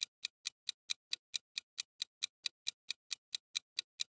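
Countdown-timer sound effect: an even clock ticking, about four to five ticks a second.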